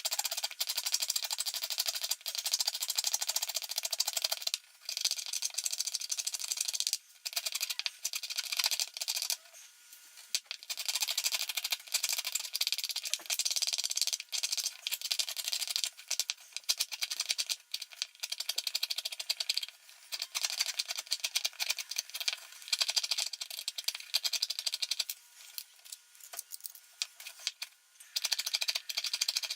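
Rusty metal of an old hand plane being scrubbed by hand with an abrasive: a steady gritty scratching of rapid strokes, in spells with brief pauses.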